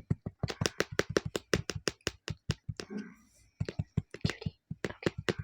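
Close-miked ASMR clicks and taps, crisp and rapid at several a second, with a short soft vocal sound about three seconds in.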